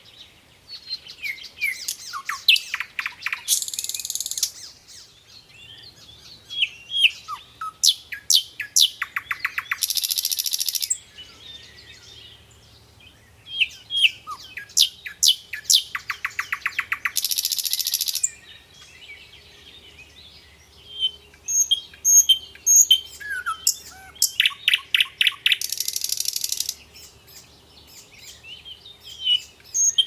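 Tailorbirds calling at a nest with young: repeated sharp chirps and quick sweeping notes, with several rapid runs of notes. Four times a hissing burst of about a second follows a run.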